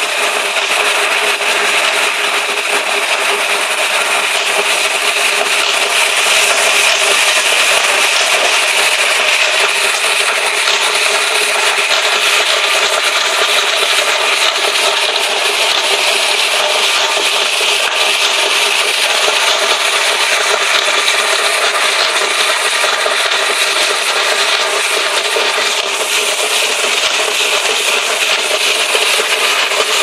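Electric walk-behind concrete floor grinder running steadily, its diamond heads grinding the loose, rain-damaged top layer off a concrete slab down to sound concrete. The noise is loud and unbroken.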